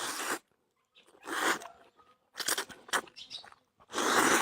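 Close-miked crunching bites and chewing of food, in four or five separate bursts.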